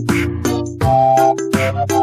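Background music with a steady beat: electronic pop-style track with held synth notes and a regular drum hit.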